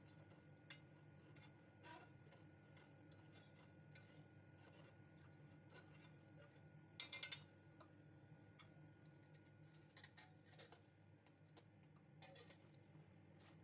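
Near silence with a low steady hum, broken by faint scattered clinks of a metal spoon against an aluminium cooking pot as boiled eggs and potatoes are stirred into the curry, with a quick cluster of clinks about seven seconds in.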